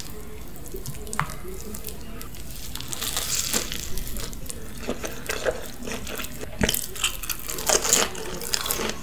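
Close-miked eating: biting into and chewing a cheesy pizza topped with chicken nuggets and waffle fries, with wet, sticky mouth sounds. It is quieter at first, then frequent sharp clicks and smacks from about three seconds in.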